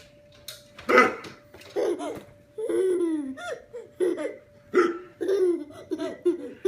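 A small child laughing in repeated bursts, several falling in pitch, set off by a man's hiccups; a sharp hiccup comes about a second in.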